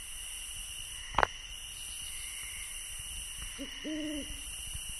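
Low hooting calls near the end, a short note then a longer one, over a steady hiss, with one sharp click about a second in.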